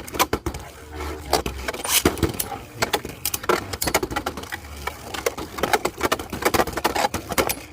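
Two Beyblade Burst spinning tops whirling around a Beyblade stadium, with many sharp, irregular clacks as they glance off the walls and each other.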